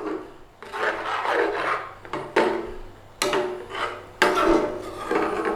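A spoon scraping and stirring thick curry around a pan in about four long strokes, each starting sharply and trailing off.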